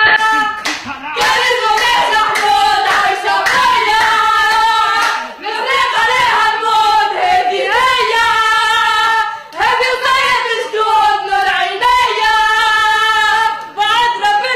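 A supporters' chant sung loudly in long held phrases, with hand claps keeping time.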